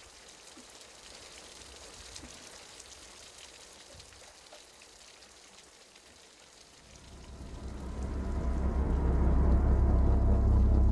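Steady rain falling, a faint hiss of drops. About seven seconds in, a loud, deep rumble swells up and holds.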